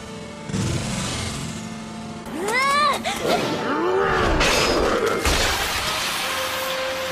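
Animated horror-battle sound effects: a shrill cry that rises and falls about two and a half seconds in, then a long, loud stretch of crashing, tearing noise.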